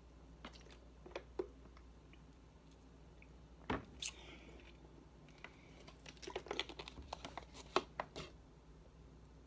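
Close mouth sounds of someone chewing fruit: scattered wet clicks and smacks, busier in the second half.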